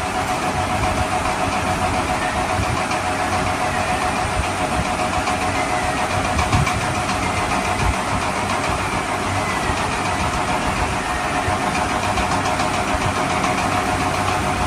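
Steady engine running sound with a constant hum throughout, even in level, with no revving.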